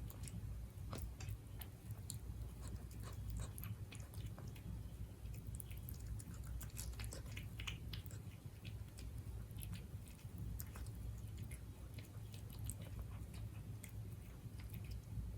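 Siberian cat chewing its food, with many irregular small crunches and clicks.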